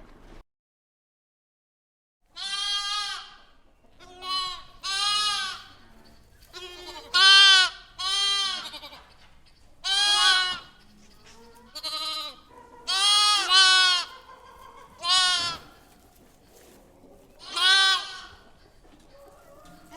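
Farm animal bleating again and again, about eleven loud, pitched calls, some in quick pairs.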